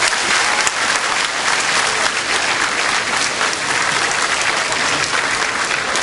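A large audience applauding, many hands clapping at once, steady throughout.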